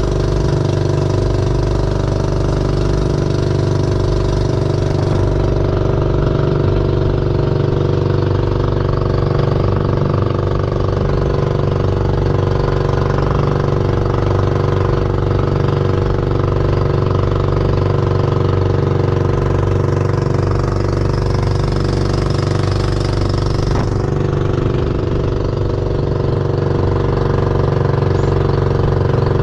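Engine of a motorized outrigger boat (bangka) running steadily while the boat is under way.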